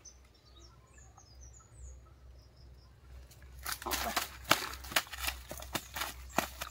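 Faint small-bird chirps in the first few seconds; then, about three and a half seconds in, a run of irregular crackles and knocks in dry leaf litter as a freshly caught fish lying on the ground is grabbed by hand.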